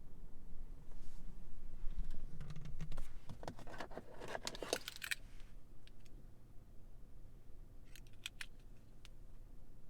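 Light rattling and clicking of small hard objects being handled, densest and loudest about four to five seconds in, then three or four sharp clicks near eight seconds.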